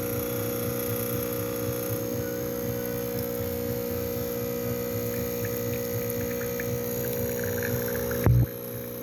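Gevi 20-bar espresso machine's pump humming steadily while pulling a shot, with faint crackling toward the end and a short, loud thump near the end.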